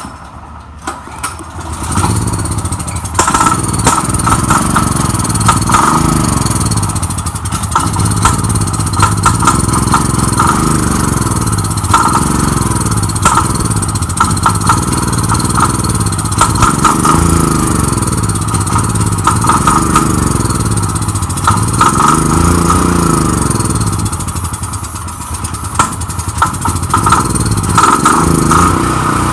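The 389cc Generac OHV engine of a Generac RS5500 portable generator, started on starting fluid poured into the intake. It catches about two seconds in and then runs unevenly, its speed surging up and down every couple of seconds. It only runs on the starting fluid: old fuel has got through the carburetor and the tank is rusty, so fuel is not reaching the engine, and the carburetor most probably needs rebuilding.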